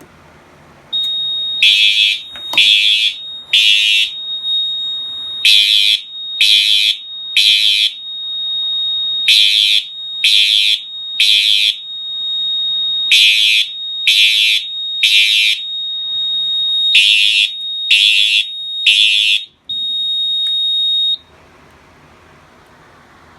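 Two synchronized Faraday 2834 horn strobes sounding in code 3 (temporal three) at low volume after a pull station is activated: five rounds of three blasts, over a steady high tone that starts about a second in. The horns stop near the end, and the steady tone cuts off a couple of seconds later.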